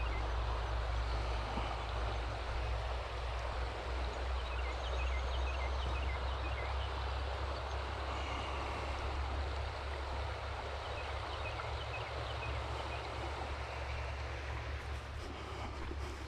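Steady rush of flowing stream water with a low rumble beneath it. A small bird's short high chirps come in quick runs twice, near the middle.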